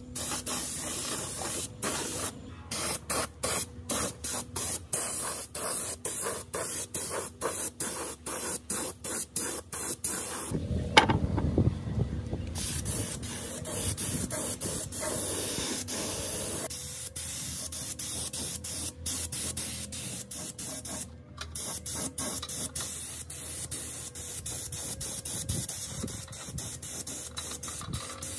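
Compressed-air paint spray gun hissing as it sprays paint, the hiss cut by many short gaps as the trigger is pulled and released. About a third of the way in the hiss pauses for a couple of seconds, with a sharp knock and a low rumble.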